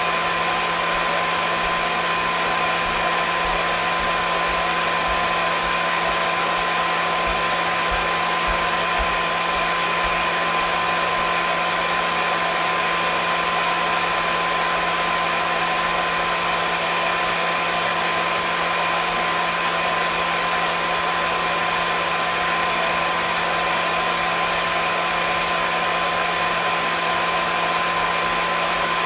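Hair dryer running continuously at one setting: a steady blowing hiss with a constant motor hum and whine.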